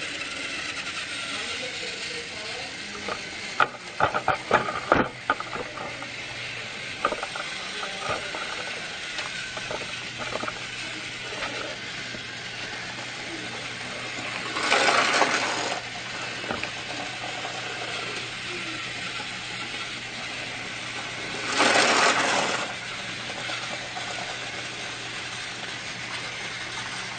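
A quick run of sharp clicks and rattles, then a steady mechanical whirr with two hissing bursts of about a second each.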